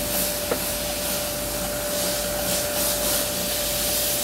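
Steady hiss of water spraying at a car wash, with a steady high whine from the wash machinery and a light click about half a second in.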